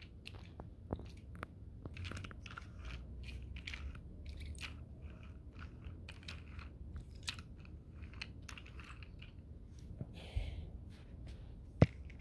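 Faint, irregular clicking and crackling of small toy trains being handled and pushed across carpet, with one sharper click near the end.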